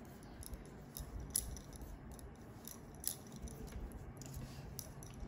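Knitting needles clicking and tapping faintly as stitches are worked, in scattered light clicks over quiet room tone.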